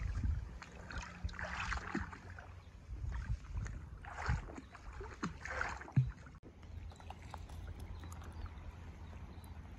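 Shallow lake water splashing and sloshing in three short bursts during the first six seconds, over a low rumble that continues steadily afterwards.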